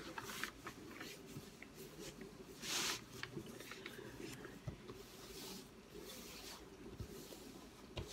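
Hands sliding and pressing over the plastic cover film of a diamond painting canvas: faint swishing strokes with small crinkles, the longest and loudest swish about three seconds in.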